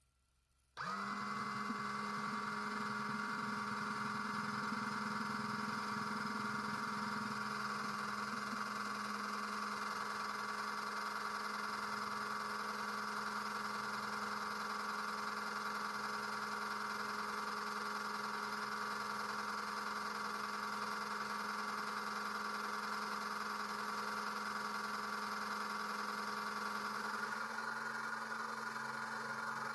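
Electric oil extractor pump switched on about a second in, its motor running with a steady hum while it sucks used engine oil up through the dipstick tube into the collection bottle. Its pitch steps up slightly near the end.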